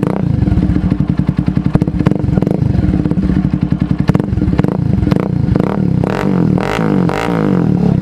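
Bajaj Avenger 220 Cruise's single-cylinder engine running through an aftermarket SC Project silencer on a fabricated bend pipe, with a fast, even exhaust pulse at idle. From about five and a half seconds in, the throttle is blipped a few times and the pitch rises and falls with each rev.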